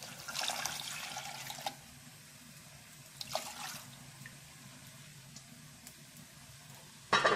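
Coconut milk poured from a plastic cup into a steel pan of hot milk, splashing for about a second, then a second shorter pour. A brief louder clatter comes at the very end.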